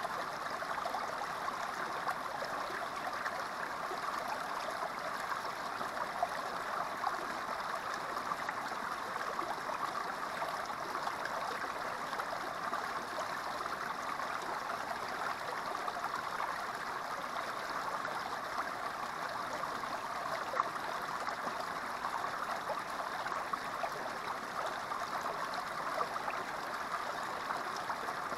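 Small creek running steadily through a narrow rock chute and splashing into a shallow pool.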